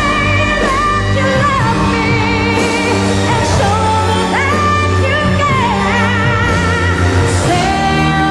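Female singer performing a pop song live with band accompaniment, holding long high notes with wide vibrato and sliding up and down between pitches.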